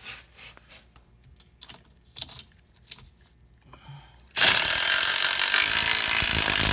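A few faint clicks and knocks of parts being handled, then about two and a half seconds of a DeWalt cordless impact driver running a bottom-roller mounting bolt into the excavator's track frame; it is the loudest thing and stops abruptly.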